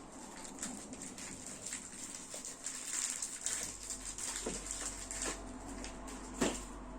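Rustling and light clicking from hands handling toy packaging and small plastic spinning-top parts during an unboxing, with one sharper click near the end.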